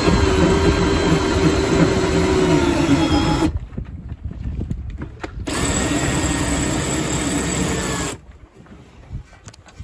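Cordless drill turning a sailboat's cockpit winch through a winch bit, hauling in a line. It runs in two goes: about three and a half seconds, a two-second pause, then about two and a half seconds more before it stops.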